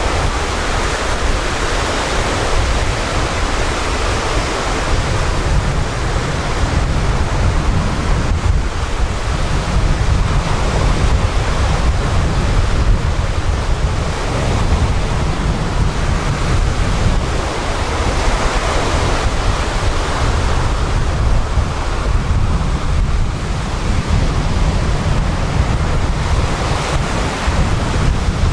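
Sea surf breaking and washing up a pebbly beach, the wash swelling and easing every few seconds, with wind buffeting the microphone as a steady low rumble underneath.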